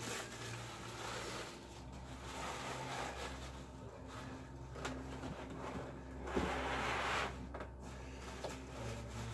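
Tissue wrapping paper rustling and crinkling in bursts as it is pulled away from a statue base packed in a styrofoam box, with one sharp knock about six seconds in. A faint steady low hum runs underneath.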